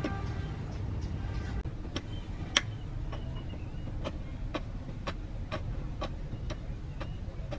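Steady low vehicle rumble with a regular ticking about twice a second over it.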